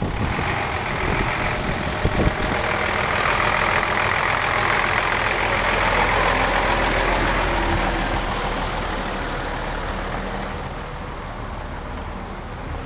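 Scania 94D 310 truck's diesel engine idling steadily. It is loudest a few seconds in and gradually fades toward the end.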